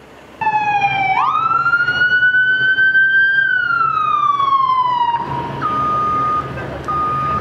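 Emergency vehicle siren sounding one long wail: a brief dip, a sharp rise, then a slow fall until it stops. Then a fire truck's reversing alarm beeps steadily, about once a second, over a low engine rumble.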